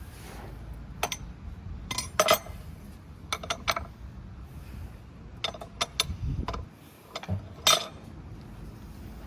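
Irregular sharp metallic clinks and clicks of brake caliper parts, pads and hand tools being handled, the loudest just after two seconds and near the end, with a brief low thud about six seconds in.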